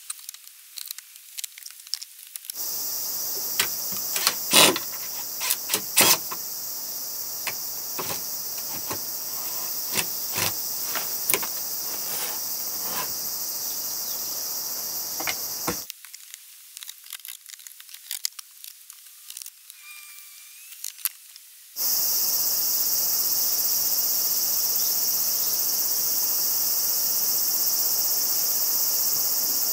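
A steady, high-pitched insect chorus shrilling; it cuts in abruptly a few seconds in, drops out for several seconds past the middle and cuts back in. Scattered knocks and clatters of wooden boards being handled run through it, loudest early on.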